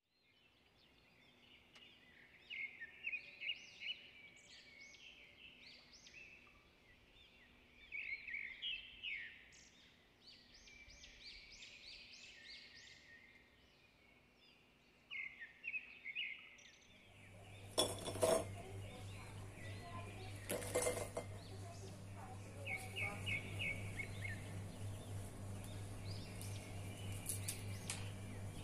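Small birds chirping in short repeated phrases. Past the middle a steady low hum sets in, with a few sharp clinks of dishes.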